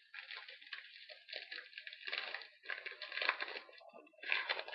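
A card pack's wrapper being handled, crinkling and tearing open, with louder crackles about two, three and four seconds in.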